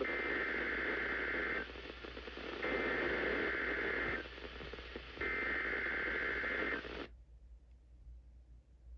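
NOAA Weather Radio SAME (Specific Area Message Encoding) header data bursts for a weekly test: three bursts of about a second and a half each, a second apart, over radio static. The static cuts off suddenly about seven seconds in.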